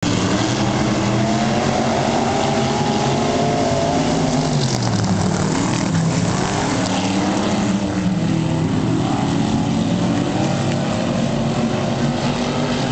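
Several vintage race car engines running at racing speed around a dirt oval, overlapping, their pitch falling and rising as the cars lift off for the turns and accelerate again.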